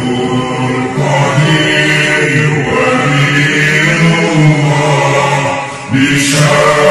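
Arabic devotional chant: a sung supplication with long held vocal notes and a short break about six seconds in.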